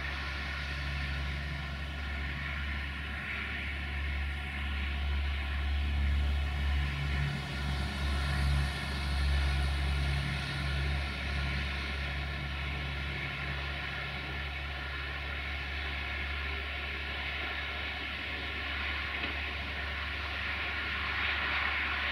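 Desiro VT642 diesel multiple unit approaching slowly from a distance: a steady low diesel drone that swells a little midway.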